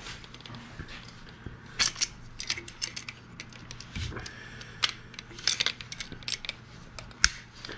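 Scattered light metallic clicks and clinks, about a dozen irregular taps with the sharpest near the end, over a faint steady low hum: tools and aluminum parts being handled during a boat compartment build.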